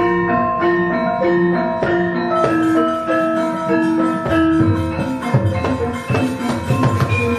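Javanese gamelan playing a stepping melody of ringing metallophone notes. Low drum strokes come in about halfway through.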